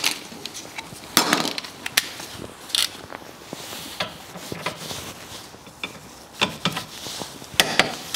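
Torque wrench ratcheting, with scattered metallic clicks and knocks, while the upper brake caliper carrier bolt is done up on the rear hub.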